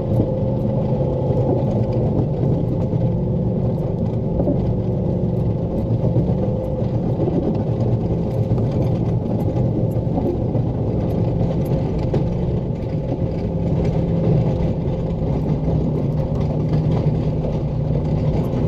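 Pickup truck engine running under load as its front-mounted snow plow pushes heavy, wet snow, with a steady rumble and the engine pitch shifting a few times.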